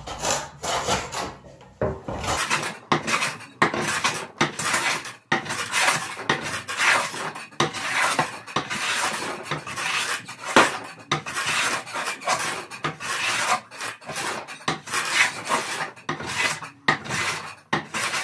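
A No. 7 jointer plane with a freshly sharpened Hock blade being pushed over and over along a mesquite board, taking shavings. Quick strokes of the steel cutting hardwood, one after another at an uneven pace.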